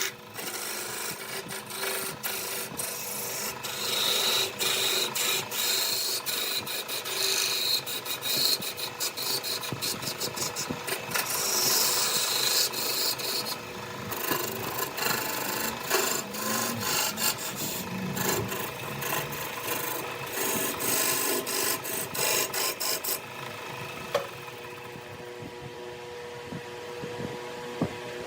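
Wood being cut or scraped on a spinning lathe: a continuous rasping hiss with many sharp ticks. Near the end the cutting stops and a quieter steady hum remains.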